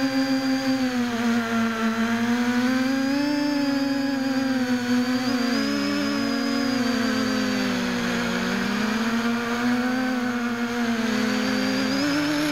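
Small quadcopter's motors and propellers whining steadily at close range, the pitch wavering up and down as the throttle changes in flight.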